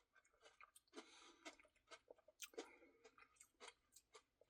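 Faint chewing and mouth sounds of someone eating an ice cream Blizzard with cookie pieces, with small irregular clicks.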